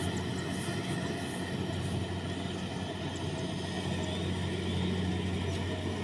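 Kubota DC-70 rice combine harvester's diesel engine running steadily while cutting rice: a constant low drone with a steady hum.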